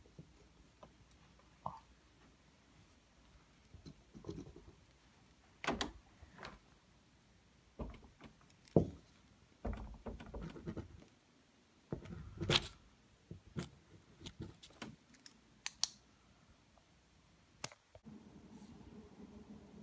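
Irregular light taps, knocks and short scrapes of a marker pen against a paper note hanging on a door. About two seconds before the end, a faint steady hum sets in.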